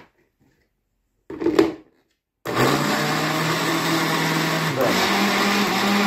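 A short clunk as the blender jar is set on its base, then the Multilaser Multi Home Multiturbo 650 blender's 650 W motor starts and runs steadily, churning hot water and detergent in the jar. A little before the end the motor steps up to a higher speed, its hum rising in pitch.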